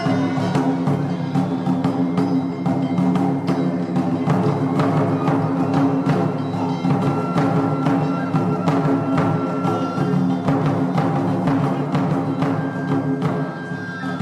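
Intro music of Japanese taiko drumming: evenly spaced deep drum strokes, about three a second, over sustained melodic tones.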